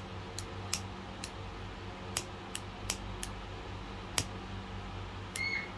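Scattered sharp clicks at irregular intervals while a handheld thread-burner pen is worked at the embroidery hoop, over a steady low hum. A short high squeak comes near the end.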